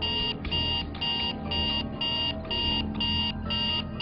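Electronic beeping, about two short high-pitched beeps a second in an even alarm-like pulse, over a low steady background: a sound effect or music cue laid over a TV stunt.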